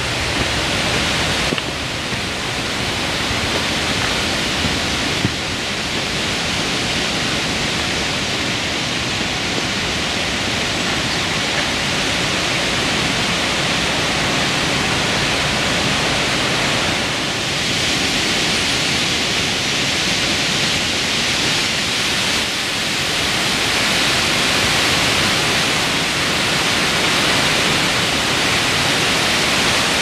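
Steady rushing of a large alpine waterfall, the Lehner Wasserfall, close by: a dense, even wash of falling water with no let-up.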